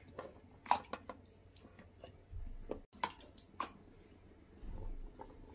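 Black carrot sticks dropped by hand into a glass jug of water: a scattered series of small plops and light taps against the glass.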